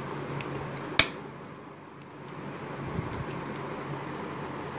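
A Corsair ValueSelect DDR3L laptop memory stick pressed down into its slot, snapping into the retaining latches with one sharp click about a second in, with a few fainter clicks of fingers on the module.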